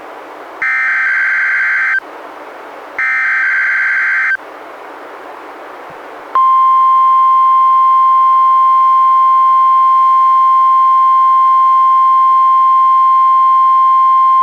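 NOAA Weather Radio SAME header: two short bursts of warbling digital data tones about a second apart, with receiver hiss between them. About two seconds later the steady NWR 1050 Hz warning alarm tone comes on loud and holds. This is a Required Weekly Test of the warning alarm.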